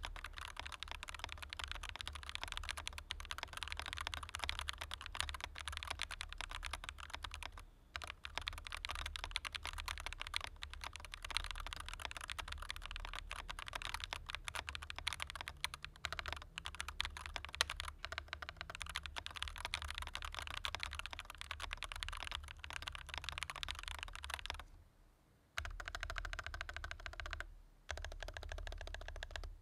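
Rapid typing on a Scyrox Xpunk 63 mechanical keyboard with all its internal foam removed: a dense, continuous run of key clicks, broken by brief pauses about eight seconds in and near the end.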